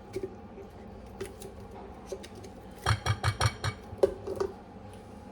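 Spoon clinking and scraping against a bowl as chicken salad is spooned into it, with a quick run of about five knocks near the middle and one sharp clink about a second later.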